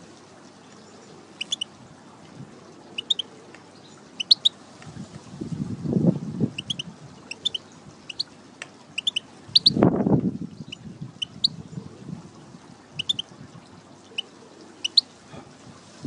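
European goldfinch calling: short high chirps, often in quick pairs, repeated every second or so. A low muffled rumble rises and fades twice, about six and ten seconds in.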